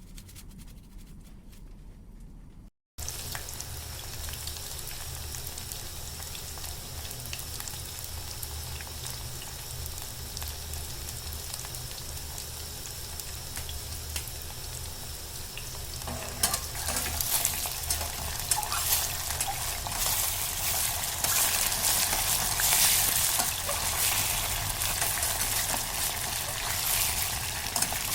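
Bitter gourd frying in hot oil in a pan: a steady sizzle that turns louder and more crackly about halfway through.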